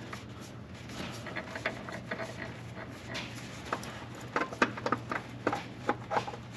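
Paper towels rustling and rubbing as a gloved hand wipes around a UTV engine's oil filter mount, with scattered small clicks and taps. A steady low hum runs underneath.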